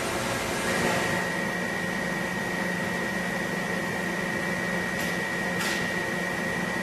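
Thread rolling machine running: a steady mechanical hum with a high, steady whine that comes in about a second in. Two short hisses about five seconds in.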